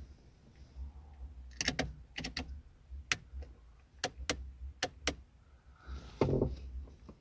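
Sharp plastic clicks from a car's steering-column wiper/washer stalk switch being worked by hand, about eight clicks spread over a few seconds. A louder, duller knock of handling comes near the end.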